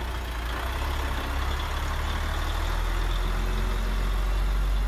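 Heavy diesel truck engine sound from a radio-controlled MAN tractor truck, running with the throttle pushed and slowly getting louder while the truck stays put: it is stuck.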